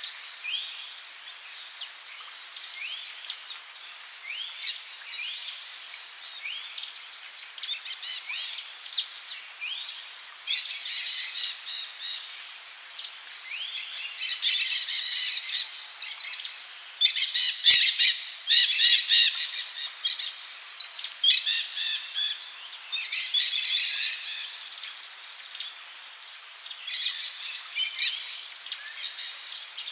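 Amazon rainforest soundscape: many birds calling and singing in quick short notes over a steady high drone of insects. Three times, a loud call of two short notes stands out above the rest.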